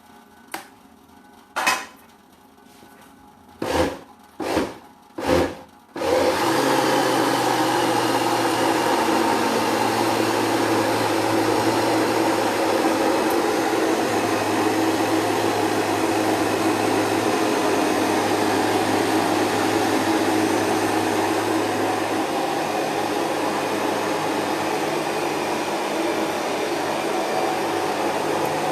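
Electric kitchen blender grinding turmeric root with water: two knocks, then three short pulses of the motor, and from about six seconds in it runs steadily.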